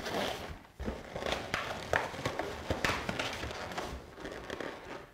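Inflated latex balloons rubbing and squeaking against one another as a four-balloon cluster is worked onto a balloon garland. Irregular squeaks and taps come in quick succession, fading away near the end.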